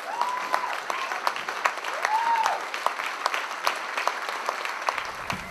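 Theatre audience applauding, with two short high calls that rise and fall in the first half. Music begins under the clapping near the end.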